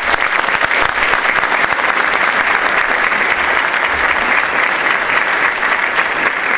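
Audience applauding steadily: a dense, even clapping from a large seated crowd.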